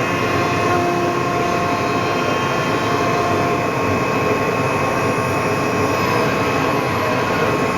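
Linnerman CC-1530 CNC router running, a steady high whine over a constant rushing noise.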